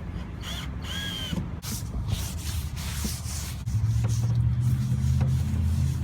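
Cordless drill driving a screw into a van wall panel: a steady low motor hum that starts a little past the middle and runs on. A few knocks and two short squeaks come earlier, over a constant low rumble.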